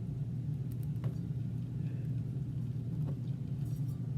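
Steady low hum with a few faint light clicks.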